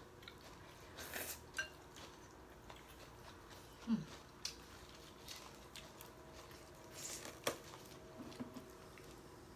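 Chopsticks and spoons tapping and clinking against ceramic soup bowls during a meal of noodle soup: scattered light clicks, the loudest about seven and a half seconds in.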